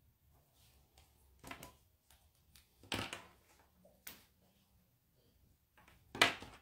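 Tabletop handling sounds: four short knocks and rustles as markers are set down and picked up and the paper is moved. The last one, near the end, is the loudest.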